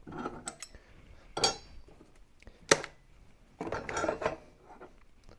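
Small hard parts of a switch-panel kit being handled and set down. There are sharp clinks and knocks about one and a half and two and three-quarter seconds in, and a scuffling handling noise around four seconds in.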